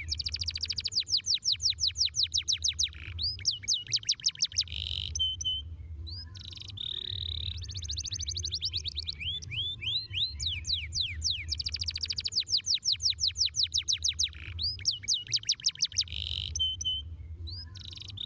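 Domestic canary singing rolling trills: phrases of very fast, repeated down-slurred high notes, broken by short pauses. A steady low hum runs underneath.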